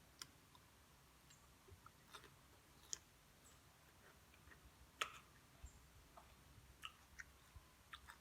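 Faint, scattered eating sounds: about a dozen small clicks and ticks from mouth and food handling, the sharpest about three and five seconds in.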